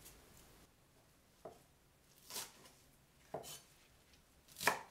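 Cleaver chopping spring onions and coriander into lengths on a wooden cutting board: four slow strokes, about one a second, the last the loudest.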